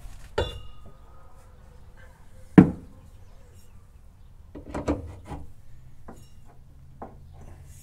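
Metal parts clinking and knocking during hand work on a 1971 VW Bus's front shock absorber mount. A short ringing clink about half a second in, one sharp knock near three seconds in (the loudest sound), then a run of small clicks and taps around five seconds.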